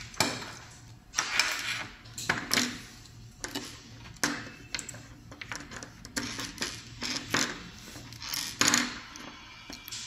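Close handling noise from wires and a small circuit board being handled on a desk: irregular clicks, rustles and light clinks, several of them sharp.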